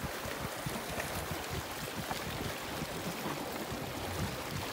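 Steady wind buffeting the microphone over sea waves washing on the shore, a fluttering rumble under an even hiss.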